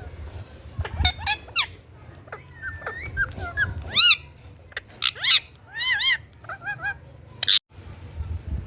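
Indian ringneck parrot chirping and calling: a quick run of short chirps and arched calls that rise and fall in pitch, with a brief break near the end.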